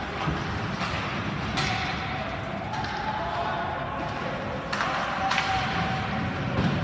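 Ice hockey play at a rink: several sharp knocks and thuds from sticks, puck and the boards, over a steady din with faint voices.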